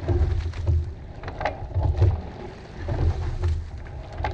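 Coxed four rowing shell under way: water rushing past the hull, sharp knocks from the oars in their oarlocks, and low rumbling surges that come and go with the stroke every second or so.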